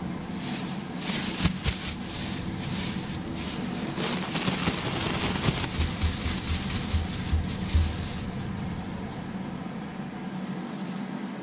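Thin plastic bag crinkling and rustling as it is shaken to coat fish in a flour mix, with soft low thumps midway as the fish knock about inside. A kitchen extractor fan hums steadily underneath.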